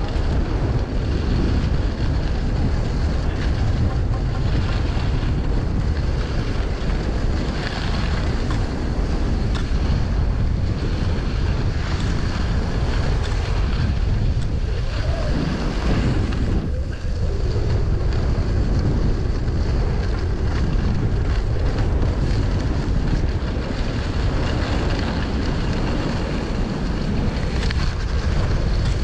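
Wind buffeting the microphone: a steady, loud rushing noise that is heaviest in the low rumble, without a break.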